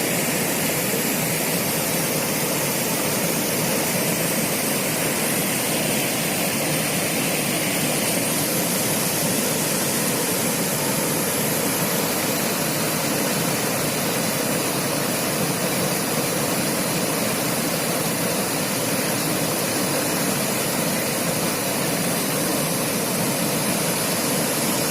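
Steady rushing of river water flowing over rocks, an even, unbroken noise.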